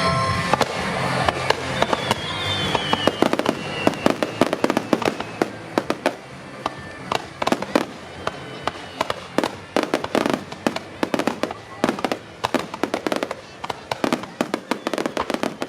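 Fireworks finale: a dense barrage of sharp bangs and crackling bursts in quick succession, with a short falling whistle about two seconds in. The last of the accompanying music fades out in the first second.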